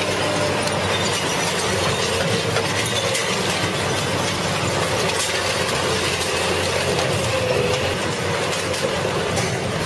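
Red Giant mobile shredder running under load as its shafts tear up a crushed car body: a steady, dense machine din with a wavering drone and scattered cracks of breaking metal and glass.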